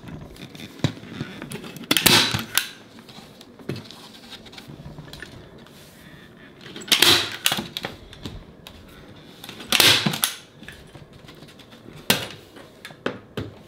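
Manual hand-held staple gun firing staples through cane webbing into a pine door frame: a series of sharp snaps a few seconds apart, with lighter clicks and rustling of the webbing between shots.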